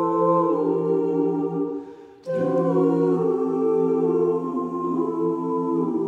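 Mixed a cappella vocal ensemble singing sustained jazz-style close-harmony chords on a wordless "ooh". The chord fades out about two seconds in, and the voices come back in together on a new chord that is held.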